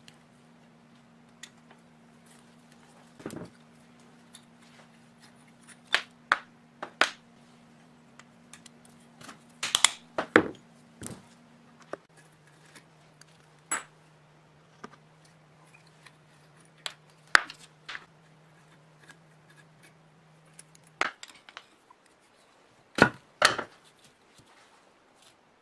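Irregular sharp metal clicks and clinks of an Allen key working the bolts on a rusty air compressor cylinder head, with the loudest pair near the end as the head cover is taken in hand. A faint steady low hum sits underneath, drops in pitch about halfway through and stops a few seconds before the end.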